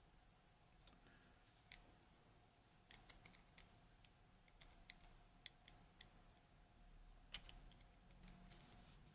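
Faint, irregular small clicks and taps of a lock cylinder and tools being handled as the Kaba Gemini S lock is taken apart, with a quick cluster about three seconds in and more past seven seconds.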